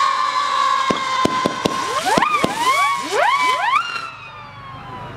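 Weco 'Crying Wolf' 39-shot firework cake firing its final shots: continuous whistling tones, a few sharp cracks about a second in, then a quick flurry of rising whistles. About four seconds in the whistling dies down to faint, slowly falling tones.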